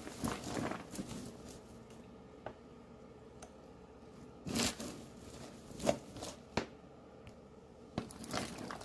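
Popcorn rustling and crunching as a metal spoon stirs it in a container, coating it with a buttery sugar mixture. It comes in uneven bursts with a quieter stretch between, and a few light ticks of the spoon.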